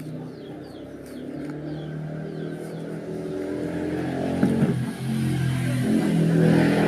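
A motor vehicle engine running steadily and growing louder, with a brief dip and change of pitch about five seconds in. Short bird chirps sound over it in the first few seconds.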